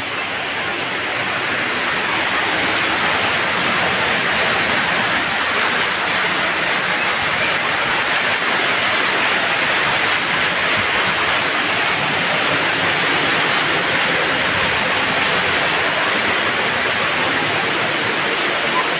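Artificial waterfall pouring a curtain of water into a rock-lined pond, a steady splashing rush that grows louder over the first few seconds.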